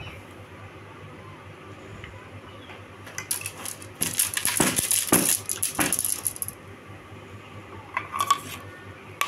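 Wooden and bamboo sticks of a hand loom clattering as the weaver works the weave: a dense run of quick clicks and rattles from about three seconds in until past six seconds, then a short burst about eight seconds in.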